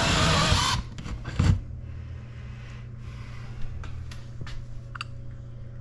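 A power drill boring a large 3.5-inch hole saw through the wall runs under load and stops suddenly about three-quarters of a second in. It is followed by a knock about half a second later and faint scraping and clicking over a low steady hum.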